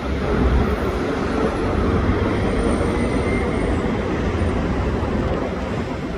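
Wind blowing across the microphone, a steady rushing rumble that swells and dips, over a low hum of distant city traffic.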